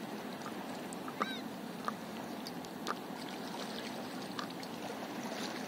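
Water lapping gently around a paddleboard on calm sea, with a few small drips and splashes. About a second in there is one brief squawk-like call.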